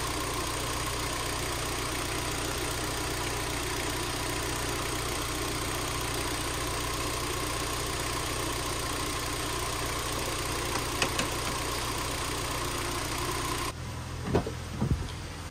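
2011 Hyundai Tucson's four-cylinder engine idling steadily under the open hood, with a faint steady whine, while the A/C compressor runs and draws refrigerant in through the low side during a recharge. About 14 s in it drops abruptly to a quieter background with a few light knocks.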